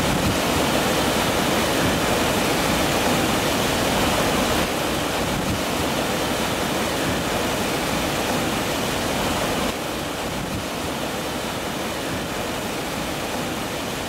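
Water pouring over a low concrete weir and running in a shallow channel: a steady rushing noise, a little quieter after about ten seconds.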